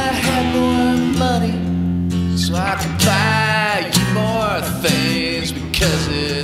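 Background music: a song passage without words, with strummed acoustic guitar and held, bending melody notes.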